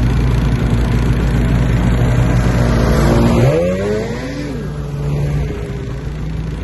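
Snowmobile engines idling steadily. Just past halfway, one snowmobile revs up and then eases off as it pulls in close by.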